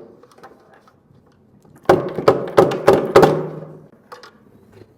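A quick run of about six hard knocks and clacks, starting about two seconds in and lasting about two seconds.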